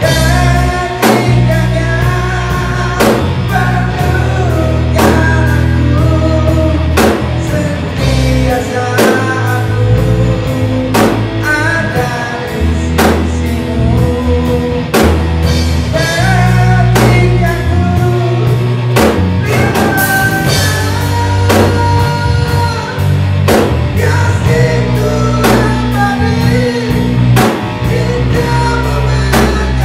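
A rock band playing live: drum kit keeping a steady beat, bass guitar and guitar, with a man singing into a microphone.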